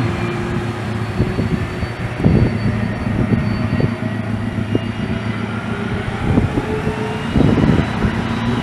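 QANTAS Airbus A330 twin jet engines running at takeoff power: a steady, loud rumble with a faint whine that rises slowly near the end.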